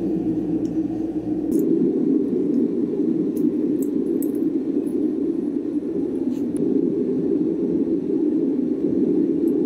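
Forge burner running steadily with an even, hissing rush while a steel billet heats to a bright yellow, with a few faint ticks.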